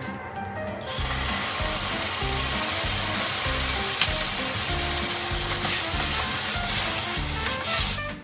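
Food sizzling steadily in a hot frying pan as it is stir-fried, starting about a second in and cutting off sharply at the end, for stir-fried dried anchovies (myeolchi-bokkeum). Background music plays underneath.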